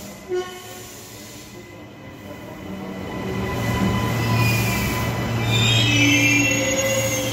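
Queensland Rail New Generation Rollingstock electric train pulling into the platform, its running rumble growing louder as the carriages pass, with wheels squealing in high, wavering tones from about halfway through. A short, sharp sound near the start.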